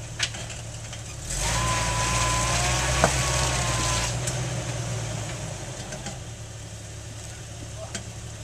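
Rock-crawling Jeep Wrangler's engine idling, then brought up on the throttle for about three seconds with a thin whine over it and one sharp knock, before easing back down to idle.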